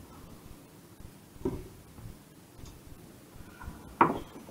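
Quiet handling of cauliflower florets on a wooden chopping board, with a light knock about a second and a half in and a sharper knock near the end as scraps are swept off the board into a plastic rubbish container fixed to its front edge.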